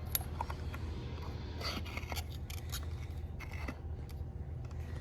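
Scattered small clicks and brief scrapes of the spark plug wire's rubber boot being handled and pushed back onto a spark plug of a Honda VTX 1300.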